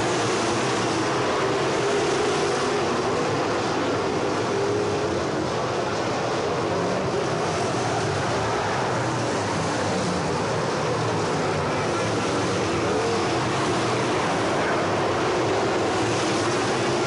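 A pack of crate-engine dirt late model race cars running laps on a dirt oval: a steady, unbroken engine drone with no single car standing out.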